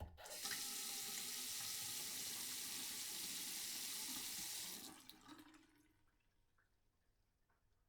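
Water from a sink tap running into the basin in a steady stream, turned on at the start and shut off about five seconds in, the flow dying away within a second.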